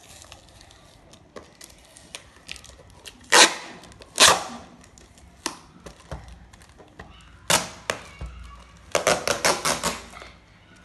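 Packing tape being peeled and torn off a clear plastic box, in sharp crackling rips. Two loud ones come a few seconds in, another about two-thirds of the way through, and a quick run of crackles near the end.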